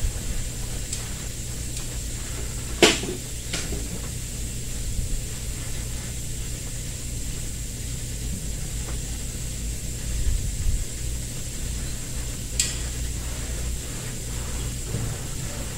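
Steady low hum with a thin high whine, like a machine or fan running, broken by a few sharp clicks: two about three seconds in and one late on.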